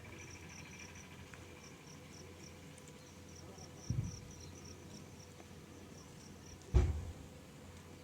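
A cricket chirping faintly in short, even pulses, about four a second. A dull low thump comes about four seconds in, and a louder one about seven seconds in.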